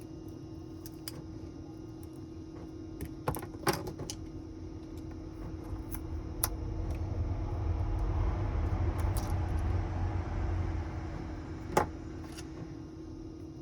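Small hand tools and phone parts clicking and tapping on a work surface, with a handling rustle swelling in the middle, over a steady faint hum.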